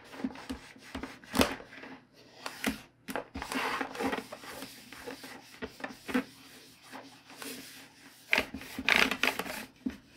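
Cloth wiping and rubbing the plastic front face of a GE clock radio, in irregular strokes of varying length, with a few short sharp clicks of the plastic case being handled.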